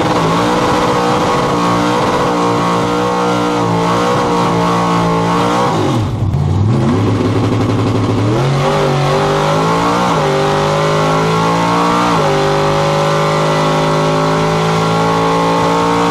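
V8 engine with a standard set of headers, at full throttle on a drag strip pass, heard from inside the car. The engine note climbs and drops back several times as the car shifts up through the gears.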